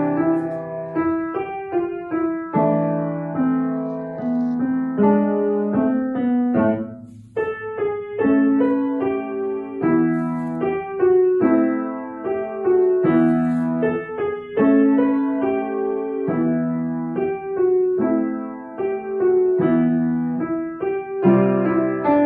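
Kawai upright piano played by a child: a steady run of notes and chords over low repeated bass notes, with a brief break about seven seconds in.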